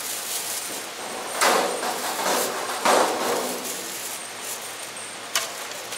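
Thin plastic food bag rustling as gloved hands handle it, with two louder crinkling swells about a second and a half and about three seconds in. A single sharp knock on the wooden chopping board comes near the end.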